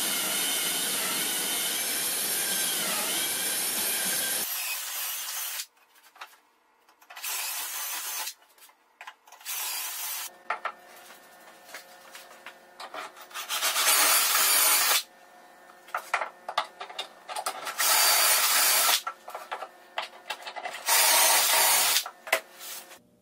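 Cordless drill boring dowel holes into plywood: a steady run of about four seconds with the motor's pitch dipping under load, then lighter handling knocks, then several short bursts of drilling in the second half.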